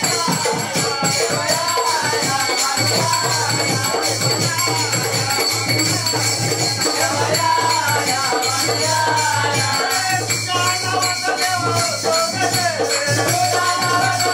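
Devotional folk music played without a break: a singing voice over fast, dense shaken and jingling percussion, with a steady low tone underneath.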